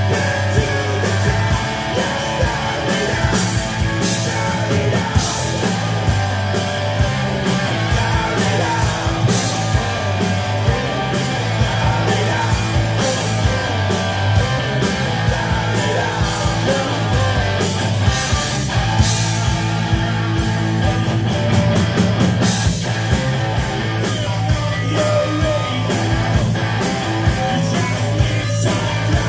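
A rock band playing live: distorted electric guitars, bass guitar and drums with crashing cymbals, and a male singer singing into the microphone.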